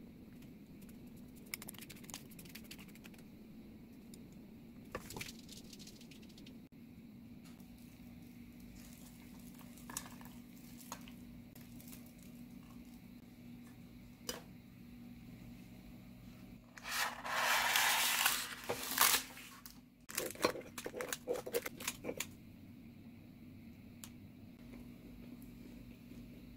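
Kitchen handling sounds over a low steady hum: small taps and clicks as toppings go onto food in an air fryer basket, then a loud rustling scrape lasting about two seconds, followed by a quick run of clicks.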